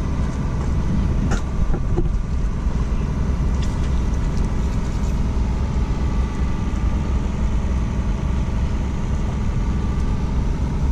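A steady low engine drone with a faint steady hum on top, and a couple of light clicks about a second and two seconds in.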